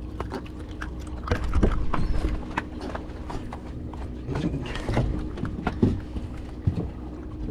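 Irregular knocks and thumps on a boat, uneven in strength and spacing, over a steady low hum.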